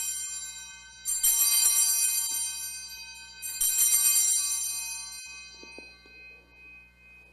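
Altar bells rung at the elevation of the consecrated host: a first ring fading out, then two more shaken rings about two and a half seconds apart, each dying away slowly. They mark the consecration of the bread.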